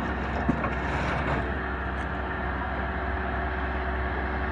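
Tracked forestry log processor running steadily, a low diesel engine hum under even mechanical noise as the boom and processing head work.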